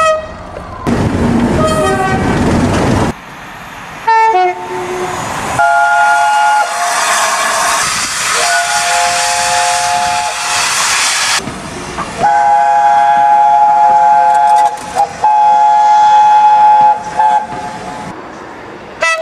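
Train horns sounding in long, steady chords of several notes, with short toots and stretches of train rumble and hiss between them. The sound changes abruptly every few seconds.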